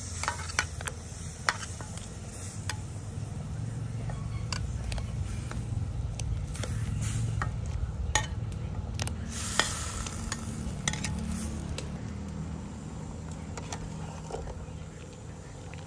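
Metal ladle clinking and scraping against a china plate and the metal pot as fish balls are pushed into boiling soup, scattered sharp clicks over the steady low rumble of the pot boiling on the fire.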